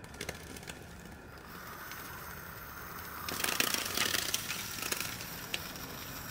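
A tin can of molten lead scraping and clicking against a bench vise as the lead is poured, with a cluster of clicks and scrapes loudest about three to five seconds in, over a steady hiss that comes in about a second and a half in.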